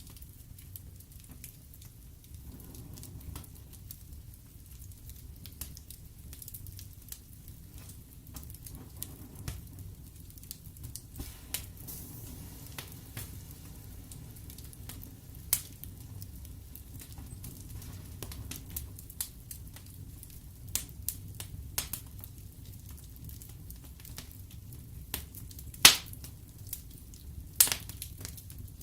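Wood fire burning in a fireplace: logs crackling with many scattered sharp pops over a steady low rumble of flame, the loudest pop about 26 seconds in.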